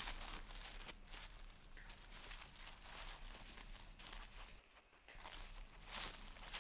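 Dry leaves and grass rustling and crackling as a Tasmanian devil gathers and shifts nest bedding. The rustling comes in irregular scuffles, dips briefly about two-thirds of the way through, then picks up again with a louder rustle near the end.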